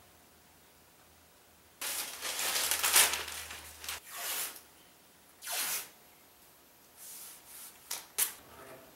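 Masking tape being peeled off a metal painting-stand bar: one long rip of about two seconds, then several shorter pulls.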